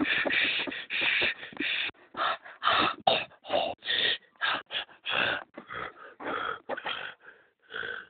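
A person making breathy, wheezing huffs in short, irregular bursts, a few each second, with no voiced tone.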